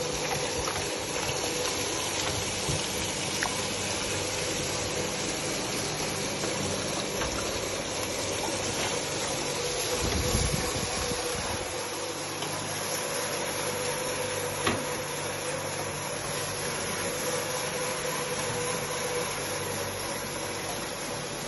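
Electric pedestal fan running with a steady whir and hum, with a few faint clicks of a pig eating from its bowl. A brief low rumble comes about ten seconds in.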